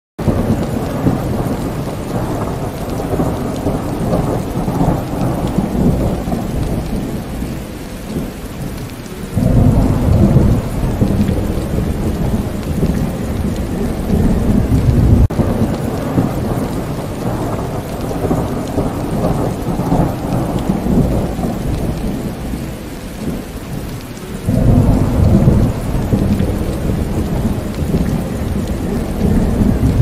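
Thunderstorm with steady falling water and rumbling thunder, the thunder swelling suddenly louder about nine seconds in and again near the end.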